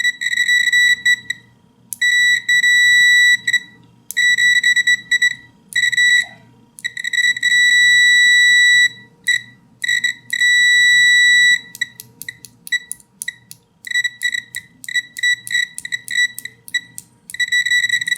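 Continuity beeper of a Tilswall FY8233X digital multimeter sounding a high, steady beep as the included test probes make contact. It comes in several long beeps of a second or two, then from about twelve seconds in breaks into rapid stuttering chirps: the stock probes make unsteady contact, which the reviewer judges not that good.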